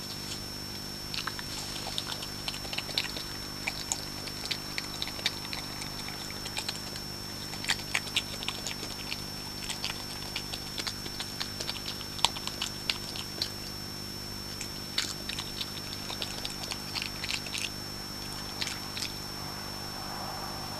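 European badger crunching peanuts from a dish: irregular crisp crunches and clicks that stop near the end as it lifts its head. Underneath is a steady high-pitched whine and low hum from the recording.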